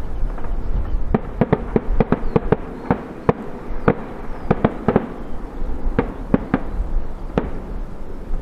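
Air-show pyrotechnics going off in an irregular string of sharp cracks and bangs, about two or three a second at times, over a low rumble.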